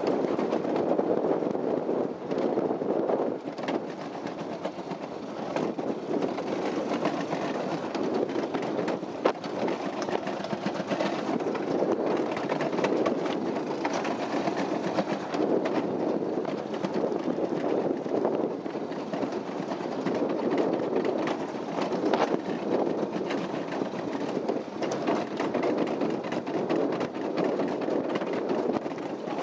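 Summer toboggan sled running fast down a stainless-steel trough: a steady rolling rumble and rattle with frequent small clicks and knocks, and one sharper knock about nine seconds in.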